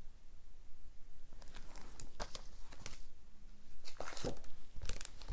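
Crinkling and rustling of paper and plastic as cross-stitch pattern charts are handled, in two bursts, about a second in and again about four seconds in.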